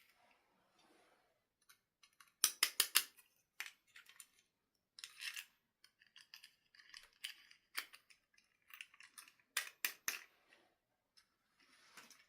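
Close handling sounds: a quick cluster of four sharp clicks about two and a half seconds in, then scattered clicks, snips and short rustles.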